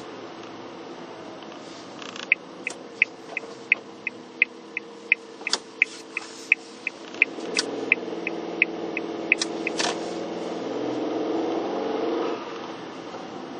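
Car turn-signal indicator clicking steadily, about three clicks a second, during a turn, over the car's engine and road noise, which swells as the car pulls away after the turn.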